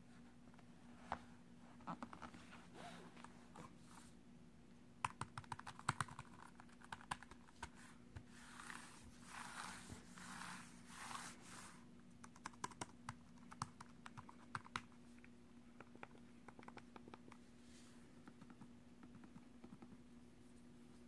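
Keys of a ThinkPad X1 Yoga laptop keyboard being pressed, in scattered runs of quick clicks, with a brushing, rubbing sound in the middle as a hand sweeps across the keys. A few fainter clicks come near the end, over a faint steady hum.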